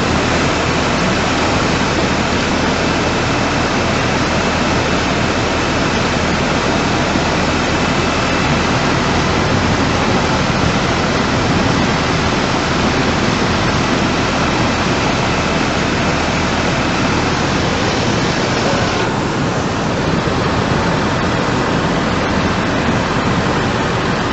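Floodwater rushing, a loud steady wash of noise with no break. About 19 seconds in the sound changes abruptly and its upper part drops, as at a cut to another flood clip.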